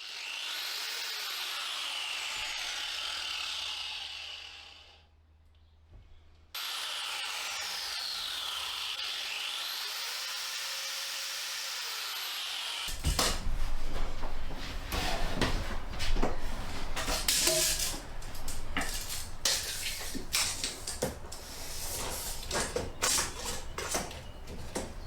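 Power drill running in two spells, its whine sweeping up and down in pitch as the speed varies. After about thirteen seconds it gives way to irregular knocks and clatter of tools and wood being worked.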